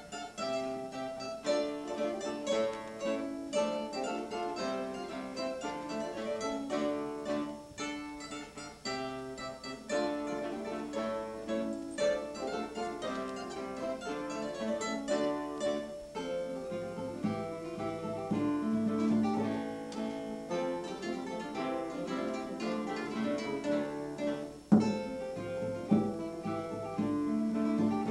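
Acoustic guitars played together, a steady flow of quickly plucked notes, with one loud struck chord near the end.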